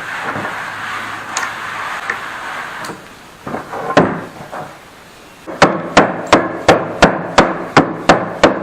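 Hammer blows on a chisel chopping waste out of a dado in a wooden transom: a steady rough noise for the first few seconds, a couple of knocks, then a quick run of about nine sharp strikes, roughly three a second, over the last three seconds.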